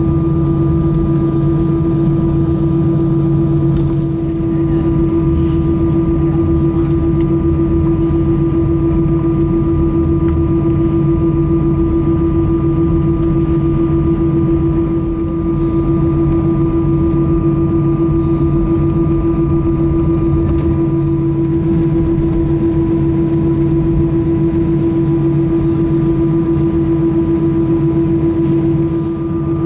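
Steady cabin noise inside an Airbus A320 taxiing on the ground: engine and air-system hum with a constant droning tone and a fainter, higher steady whine.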